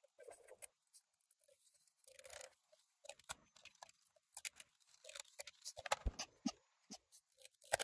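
Hands handling a plastic Polaroid SX-70 OneStep box camera: scattered faint clicks, taps and rubbing of plastic parts, with a sharper click about six seconds in and another near the end.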